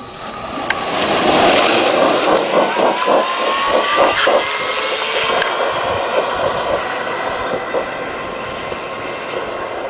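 Drag-racing golf cart's engine launching off the start line and accelerating hard down the strip. Its pitch climbs through the first few seconds of the run, and the sound then fades steadily as the cart gets farther away.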